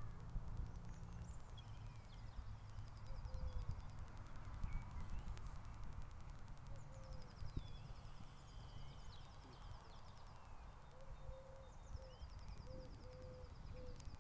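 Low, uneven rumble on the microphone, with birds chirping and trilling in the background; a run of short, repeated low calls comes in the second half.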